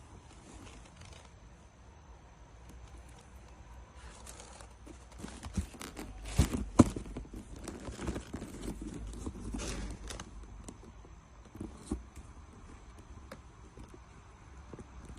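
Handling noises: rustling and crinkling mixed with sharp clicks and knocks, busiest in the middle with one loud knock, then only scattered clicks near the end.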